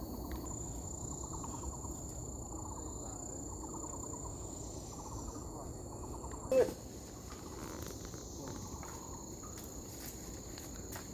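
Forest insects buzzing in a steady high-pitched drone, with a quieter pulsing chirp repeating about once a second. One brief louder sound about six and a half seconds in.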